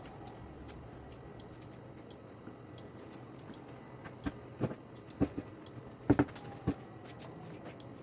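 Hands smoothing and pressing a sheet of dough on a metal baking tray, with a cluster of about seven short knocks and taps from about halfway through, the loudest near the end.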